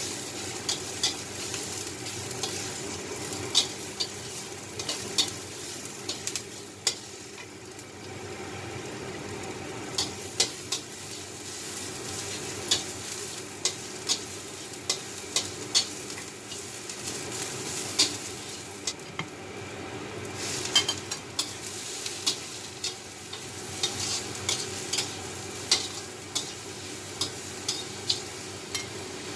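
Garlic frying in oil in a steel wok, sizzling steadily, while a spatula is stirred through it, clicking and scraping against the pan about once a second.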